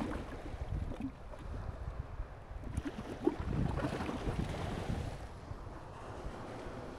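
Wind buffeting the microphone over the wash of sea waves on the shore, swelling about halfway through and then easing.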